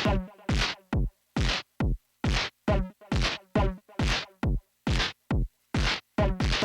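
Arturia MS-20 V software synthesizer, an emulation of the Korg MS-20, playing a repeating percussive pattern. Short noisy hits with sharp attacks come about two a second, some carrying a low buzzy tone, in a drum-machine-like groove.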